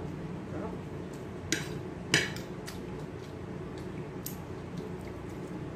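Small crab shells cracked and picked apart by hand over a metal plate: two sharp cracks about a second and a half and two seconds in, the second louder, then a few lighter clicks.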